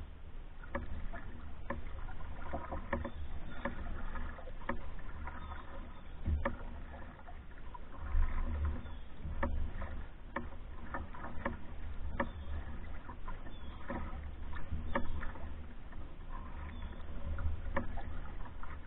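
Pack canoe being paddled: paddle strokes and water swishing along the hull, with irregular light knocks and clicks over a steady low rumble.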